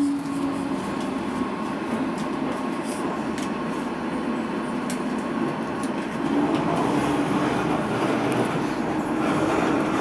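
DLR B2007 Stock light-rail train heard from inside the car while running: a steady rumble of wheels on rail. A humming tone fades out within the first second and comes back about six seconds in, as the sound grows a little louder.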